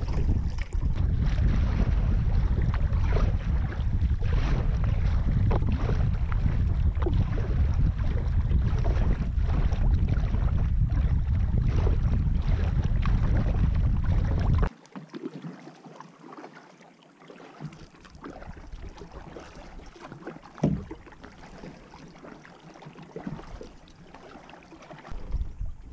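Wind buffeting the camera microphone while paddling a kayak across choppy open water, a heavy low rumble with paddle strokes and water splashing through it. A little past halfway the wind rumble stops abruptly, leaving quieter paddle strokes and water against the hull.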